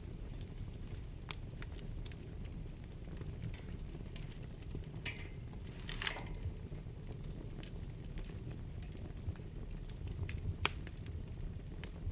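Wood fire burning in a fireplace: a steady low rumble with scattered crackles and pops, a short hiss about halfway through, and one sharper pop near the end.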